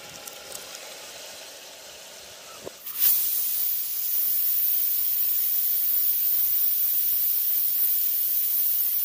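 Pressure cooker venting steam through its weighted valve: a loud, steady hiss starts suddenly about three seconds in, the sign that the cooker has come up to pressure.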